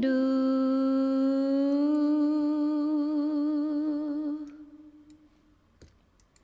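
A woman's singing voice holds one long note, steady at first and then with a widening vibrato. It fades out about four and a half seconds in, and near silence follows.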